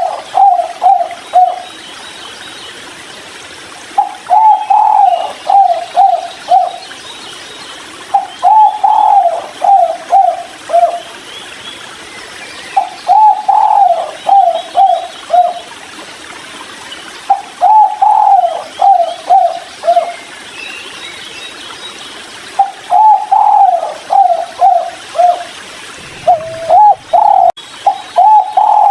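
Spotted dove (tekukur) cooing the song type keepers call "kuk 3": a phrase of one longer note and then several short "kuk" notes, repeated every four to five seconds, about seven times. Faint chirps of other small birds sound in the background.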